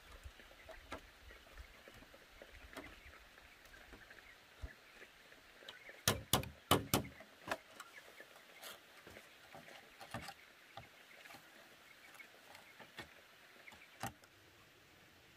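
Pliers working wire lashings around bamboo poles, twisting and snipping, with scattered small clicks and scrapes. A quick run of four or five louder sharp clicks comes about six seconds in.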